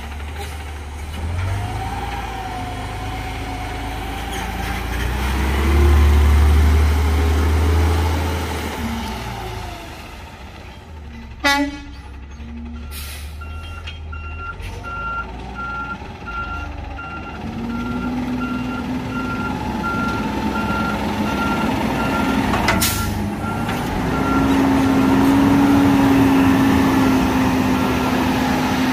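Garbage truck's diesel engine revving, with a sharp air-brake hiss about midway. Then a backup alarm beeps regularly for about ten seconds while the truck reverses. The engine pulls louder again near the end.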